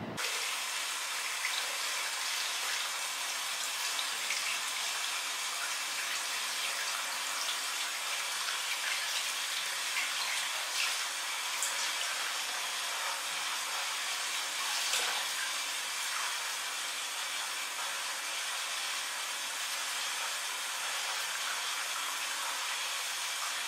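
Steady hiss of water running from a bathroom tap, with a few light splashes as a small dog is washed by hand in a bowl of water.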